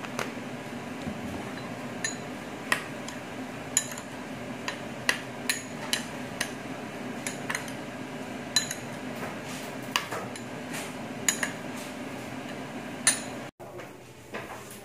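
Metal spoon clinking against a small glass bowl while sliced red onion is stirred in vinegar: irregular light clinks, roughly one a second, over a steady low hum.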